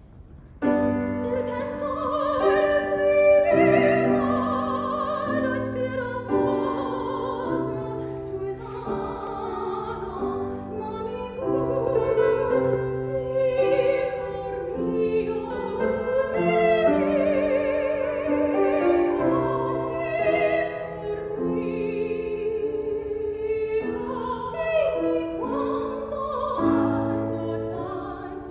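Classical art-song duet: a female voice singing in operatic style with vibrato over grand piano accompaniment, the music starting about half a second in.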